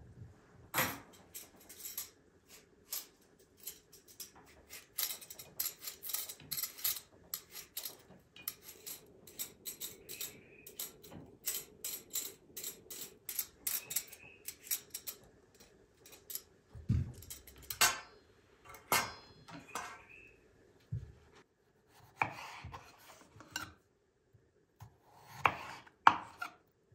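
A vegetable peeler scraping the skin off raw potatoes in quick, repeated strokes. Later, a kitchen knife slices a peeled potato on a wooden cutting board, with a few louder knocks as the blade meets the board.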